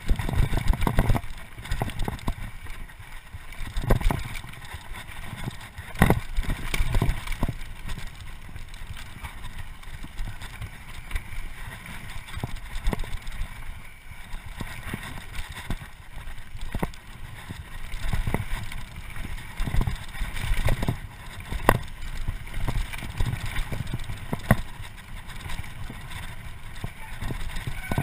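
Mountain bike riding fast down a dirt trail: a steady low rumble from the tyres and the air rushing past, broken by frequent sharp knocks and rattles as the bike jolts over bumps, a few of them much louder than the rest.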